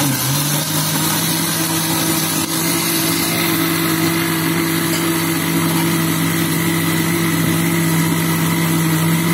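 Electric countertop blender running steadily at full speed, a constant motor hum and whine as it blends chocolate milk and chocolate ice cream into a smooth drink.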